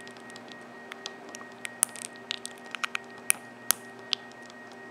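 Irregular small clicks and taps, about a dozen, as a metal spring bar tool is worked against a G-Shock's resin case and band at the lugs, trying to push a spring bar out.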